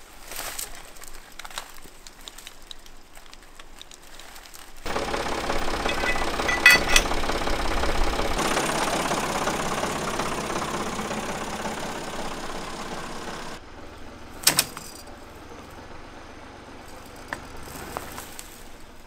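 A vehicle engine runs under load, pulling a chain taut to drag a dead bush out of the ground by its roots. The engine starts about five seconds in and slowly eases off, and a single sharp crack comes shortly after it drops away.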